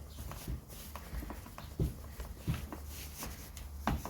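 A series of small clicks and knocks from metal parts and screws being handled and fitted during a chainsaw's reassembly, about one every half second to second, over a steady low hum.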